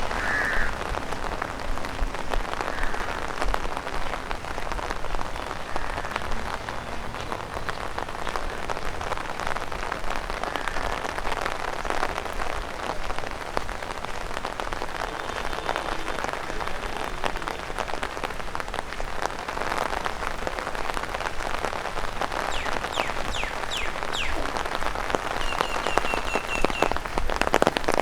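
Steady rain, with many drops tapping on an umbrella overhead.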